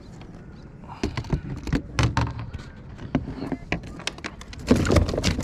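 Irregular knocks, taps and clatter on a plastic kayak's hull and deck as fishing gear is handled, starting about a second in and loudest near the end.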